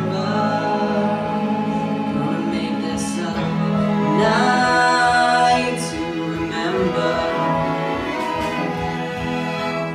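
An orchestral arrangement of a band's song: a voice singing over sustained orchestral chords with bowed strings.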